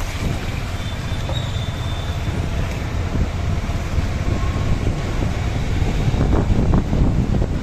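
Riding a motorised two-wheeler through city traffic: wind rumbling on the microphone over road and traffic noise, getting a little louder toward the end, with a brief high tone about a second in.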